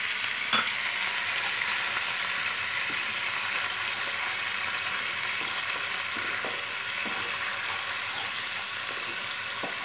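A thick poppy-seed and mustard paste gravy sizzling steadily in a non-stick wok as it is stirred with a spatula. There is a single sharp knock about half a second in.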